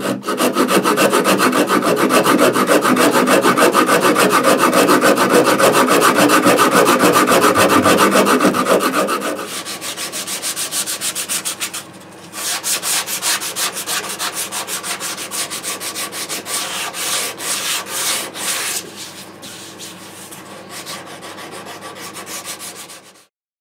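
Shinto saw rasp scraping wood from a Stratocaster body in rapid back-and-forth strokes, hogging out the rib cage contour. After about ten seconds it gives way to lighter hand sanding with a sanding disc, which stops just before the end.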